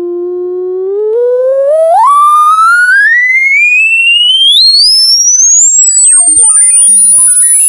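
Electronic test tone of a hearing-test frequency sweep: it holds one steady pitch for about a second, then climbs in small steps to a thin, very high whine by the end. Faint stray tones slide downward in the second half.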